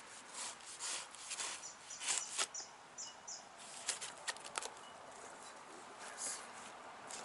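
Knife slitting the packing tape on a cardboard box: a run of short, irregular scraping rips.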